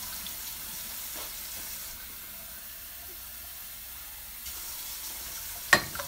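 Water pouring from a drinking glass into a pot of soaked red beans, with water running steadily throughout. A single sharp knock comes shortly before the end.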